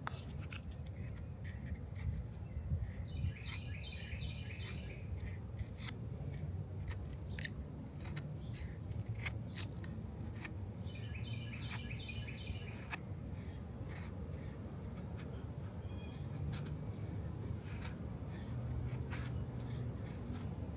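Drachenader Y-M pocket knife whittling a wooden stick to a point, with repeated short scraping and clicking cuts as the blade shaves off wood. Birds chirp in the background twice.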